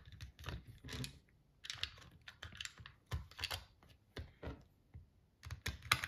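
Irregular clicks and taps of hard plastic as hands fit the battery into a toy amphibious RC stunt car and press its plastic body parts together.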